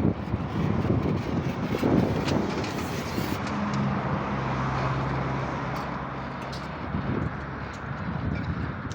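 Chevrolet Chevy running through its newly fitted muffler and exhaust tip, a low uneven exhaust rumble. A steady low hum holds for a few seconds in the middle.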